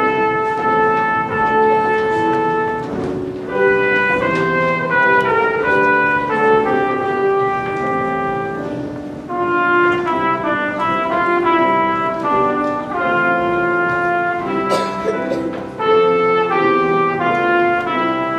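Marching band playing a tune, with brass carrying the melody over sustained chords and woodwinds alongside.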